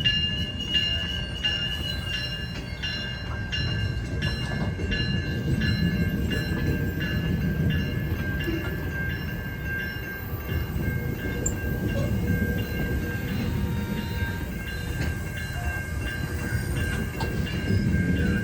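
A train rolling past a level crossing, its wheels rumbling and clacking over the rail joints, while the crossing's warning bell rings steadily.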